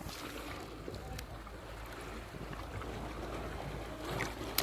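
Steady low drone of a fishing boat's engine running at idle, with faint sloshing of water as a fish is lowered into the sea by hand.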